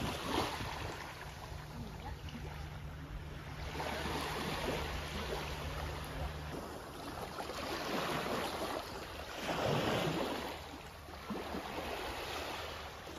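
Small waves lapping onto a sandy beach, washing in and drawing back in several gentle swells, with a faint low hum under the first half.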